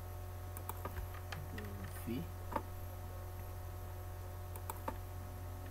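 Scattered computer keyboard keystrokes and mouse clicks, a few separate clicks in the first half and a quick cluster of three near the end, over a low steady electrical hum.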